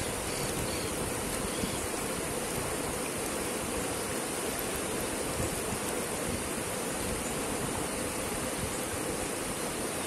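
Shallow river running over rocks and stones: a steady rippling of water.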